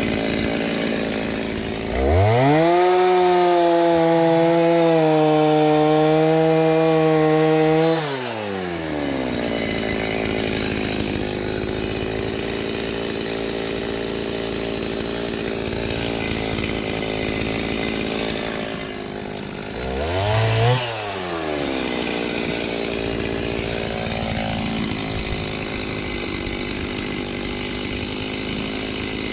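Chainsaw idling, then revved to full throttle and held for about six seconds before dropping back to idle, with one short blip of the throttle later on, while bucking dried oak logs into firewood lengths.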